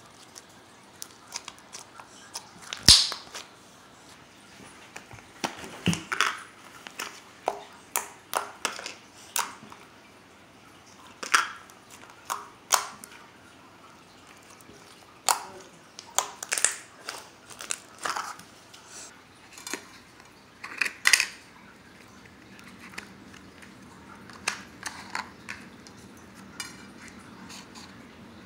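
Slime being squeezed and pressed by hand, making irregular sharp pops and clicks, a few every couple of seconds.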